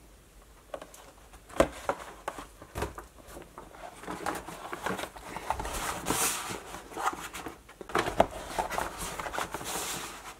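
Cardboard model-kit boxes being handled and slid into a packed shelf: scattered taps and clicks, with two stretches of scraping rustle as the boxes rub past each other.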